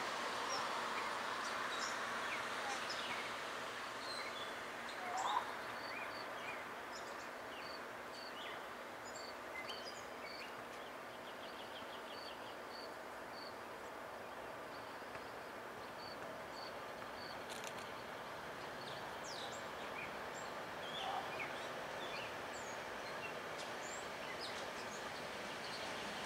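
Birds chirping and calling over a steady outdoor hum, with a note repeated at an even pace for several seconds in the middle. The faint sound of an approaching SEPTA electric commuter train grows slightly louder near the end.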